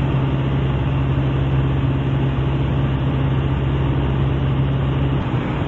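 Piper Super Cub's piston engine and propeller droning steadily in flight, a dense noise with a strong low steady tone. The low tone falls away about five seconds in.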